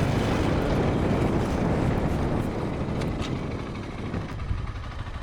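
AKT TT DS 200 motorcycle's single-cylinder engine running, mixed with wind noise on the microphone; the sound eases off somewhat over the last couple of seconds.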